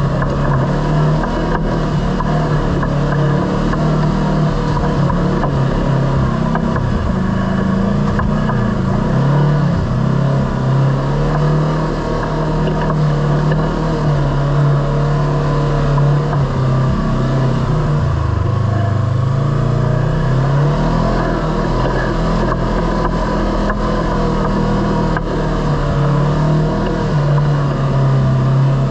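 Kawasaki Teryx KRX 1000 side-by-side's parallel-twin engine running under way, its pitch wavering up and down with engine speed. About two-thirds of the way through, it drops briefly and then climbs again.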